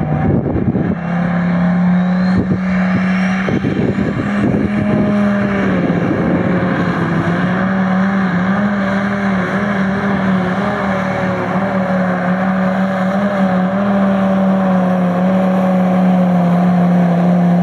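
Ten-cylinder Mercedes engine of a Light Modified pulling tractor running at high revs under full load while pulling the sled. The revs climb in the first few seconds, then hold a steady, slightly wavering note.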